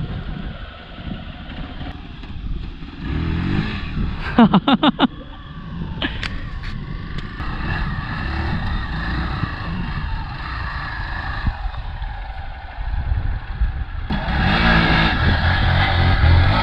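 Off-road motorcycle engine running at low revs while picking its way over a rocky trail, with a short burst of loud, rapid pulses about four seconds in. The engine gets louder near the end.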